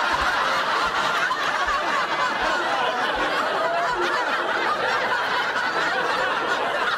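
Sitcom studio audience laughing, a long, steady wave of crowd laughter.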